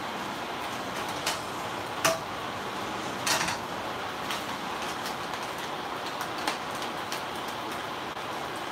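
Shrimp sizzling steadily as they sauté in a frying pan, with a few clinks of utensils and containers: a sharp clink about two seconds in and a short rattle about a second later.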